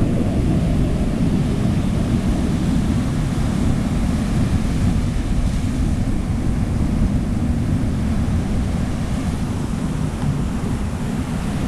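Ocean surf breaking and washing up a beach in a steady rush, with wind buffeting the microphone.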